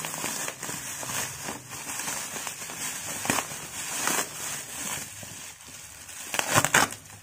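Black plastic packing and bubble wrap crinkling and crackling as hands pull and tear it open, in irregular bursts, with the loudest crackles near the end.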